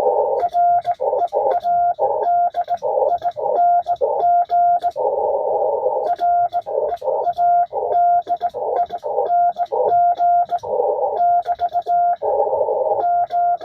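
Morse code (CW) from an 80-meter ham radio exchange: a single steady tone keyed on and off in a continuous run of dots and dashes, heard through the receiver with a hiss of band noise around it.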